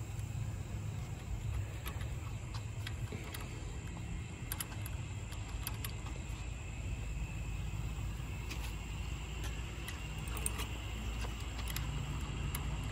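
A low steady rumble with scattered light metallic clicks and clinks, from a go-kart's roller drive chain and its master link being worked loose by hand.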